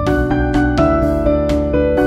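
Instrumental background music: a melody of held notes over a steady beat.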